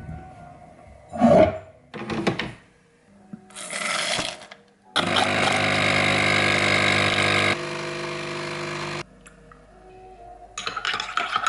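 A kitchen electrical appliance runs with a steady hum for about four seconds, dropping in level partway and then stopping, after a few short swishing sounds. Near the end a spoon clinks in a ceramic mug.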